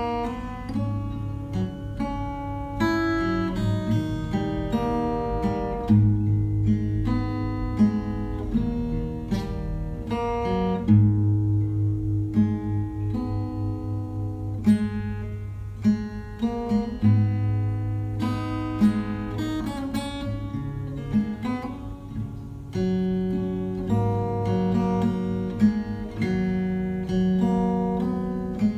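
Background music on acoustic guitar: plucked notes in a steady flowing pattern over long, held low notes.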